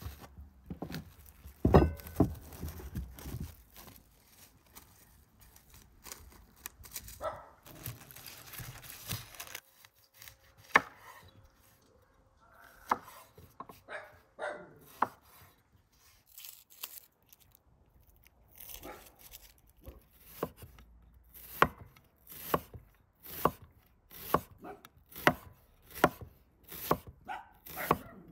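A large kitchen knife slicing a red onion on a wooden cutting board: scattered cuts at first, then a steady run of quick knocks, about two a second, through the last third.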